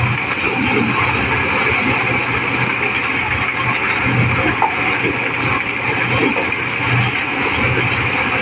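Engine-driven mobile corn sheller running steadily while shelling corn: a loud, constant mechanical din from the engine and threshing drum, with kernels pouring out of its chutes.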